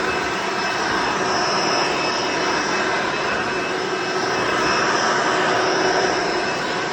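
Hoover Encore Supreme upright vacuum cleaner running at full power, a loud, steady motor roar with a fixed whine over the airflow; the level swells slightly twice as it is pushed across the floor.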